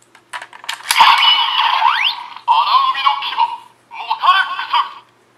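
DX Ryusoul Calibur toy sword playing its electronic sound effects and spoken callouts through its small built-in speaker, after a few plastic clicks as the Ryusoul Gold piece is loaded into it. A short rising tone comes about two seconds in, followed by two brief callouts.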